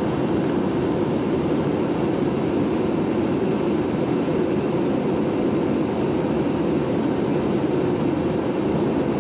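Steady cabin noise of an airliner in flight, the even drone of engines and airflow heard from inside the passenger cabin.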